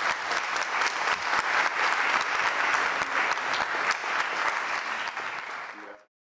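Audience applauding, a dense run of many hands clapping that cuts off suddenly near the end.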